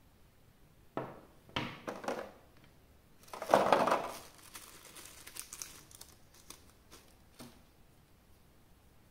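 Packaging crinkling as it is handled and unwrapped: a few short crinkles, then a louder, longer crinkle a few seconds in, tailing off into lighter rustling.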